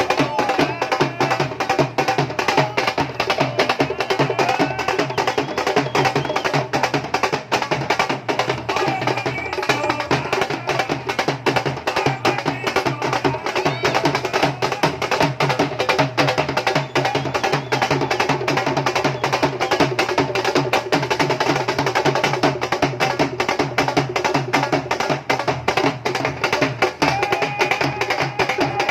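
Dhol drumming in a fast, dense rhythm over a melodic backing track.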